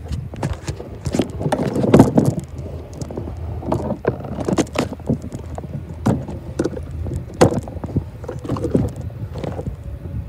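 Footsteps crunching on loose gravel, irregular and fairly loud, over a steady low rumble.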